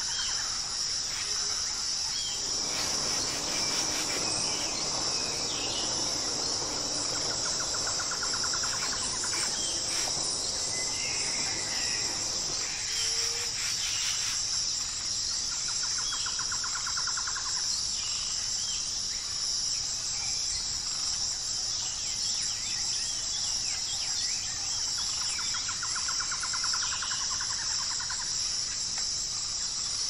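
Insects droning steadily at a high pitch, with scattered short bird chirps and a rapid pulsing trill that comes back three times, roughly every eight to ten seconds. A low rustling noise sits under it for about the first twelve seconds.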